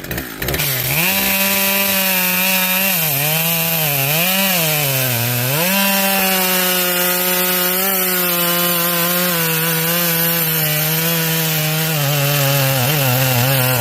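Husqvarna 572 XP two-stroke chainsaw cutting through a firewood round at full throttle against the grain, the chain throwing fine sawdust. The engine pitch sags and recovers several times as the cut loads it, a sign of the saw struggling even with a sharp chain.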